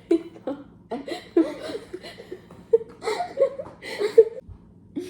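People laughing in several short fits, with a few laughing vocal sounds mixed in.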